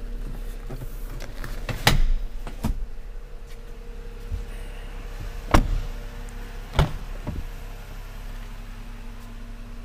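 A handful of sharp knocks and clunks, the loudest about two seconds in and just past the middle, over a steady low hum.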